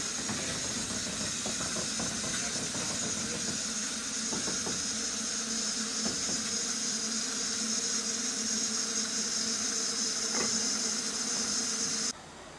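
Steady steam hissing from the Ffestiniog Railway double Fairlie locomotive Merddin Emrys, with a faint low hum and a few light clicks. It cuts off suddenly near the end.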